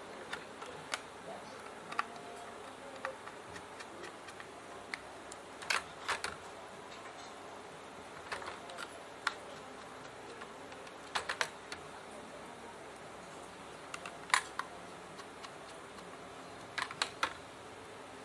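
Scattered small clicks and taps of a screwdriver, screws and hard plastic and metal laptop parts being handled as a drive is screwed into an HDD caddy. A few sharper clicks come in quick pairs and clusters.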